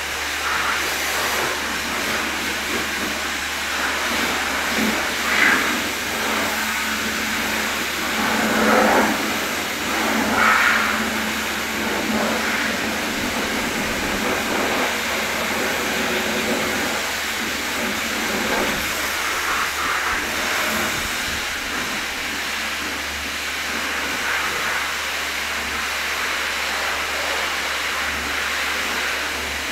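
Steady hissing spray from a car-wash hose wand over a constant low hum, with a few louder swells about five, nine and ten seconds in.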